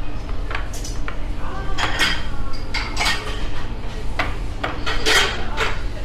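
Dishes and cutlery clinking: a string of short sharp clinks spread through, the loudest about five seconds in, over a steady low hum of the dining room.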